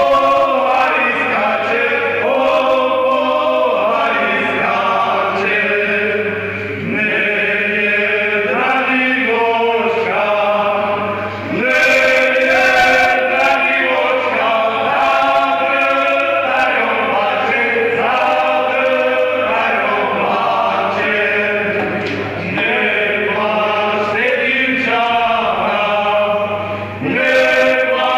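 A folk ensemble singing a song together in chorus, phrase after phrase, with short breaks between lines.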